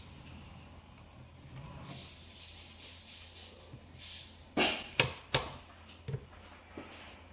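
Faint running noise of a Changming Type 160 model railbus moving slowly along the test track. A little past halfway come three sharp knocks in quick succession, then one smaller knock about a second later.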